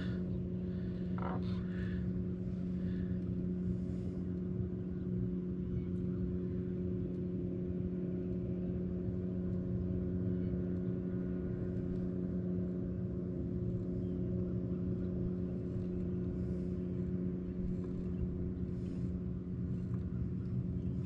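A boat's motor humming steadily: a low, even drone made of several fixed tones, with no change in speed.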